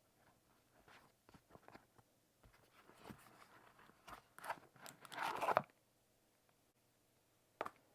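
Packaging being handled during an unboxing: light rustling and crinkling that grows louder about four seconds in and stops after about five and a half seconds, then a single sharp click near the end.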